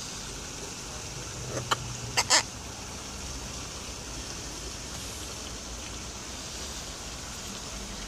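Blue-and-gold macaws giving a quick cluster of three or four short, harsh calls about two seconds in, over a steady outdoor background hiss.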